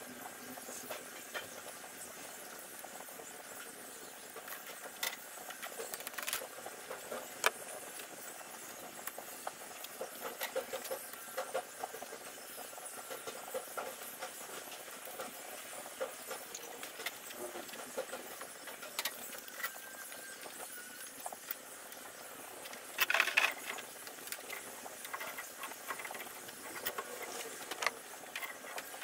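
Scattered clicks and light clinks of yellow corrugated stainless steel gas tubing and its fitting being handled and fitted by hand, over a steady hiss. A louder burst of handling noise lasting about a second comes about three quarters of the way through.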